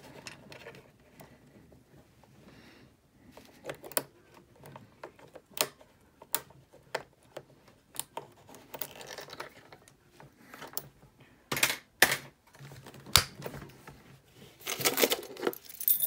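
Lock pick and tension bar working the key lock of a SentrySafe fire chest: small sharp metallic clicks and scrapes at irregular intervals. Near the end a louder burst of clicking and clattering as the lock gives and the lid opens, with keys jangling.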